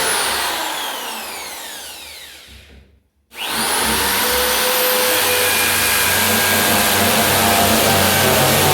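Britânia BFU01 electric drill with a 10 mm bit: its motor winds down, falling in pitch, to a stop about three seconds in, then starts again abruptly and runs steadily at full speed.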